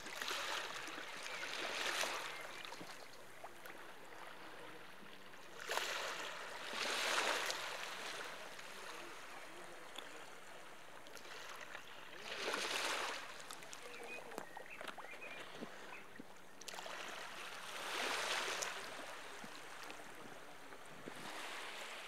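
Sea waves washing onto a beach: the surf hiss swells and fades four times, about six seconds apart.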